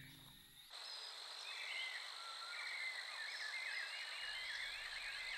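Tropical forest night chorus cutting in under the last fading notes of music, less than a second in. A steady high insect drone sounds under a dense chorus of short chirping frog calls, which builds from about a second and a half in.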